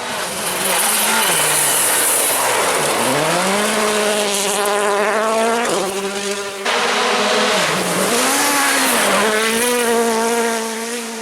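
Rally car engine at full throttle. Its pitch falls and then climbs steadily as the car accelerates through a gear. About six and a half seconds in it cuts abruptly to a car holding high revs, which dips briefly and climbs again.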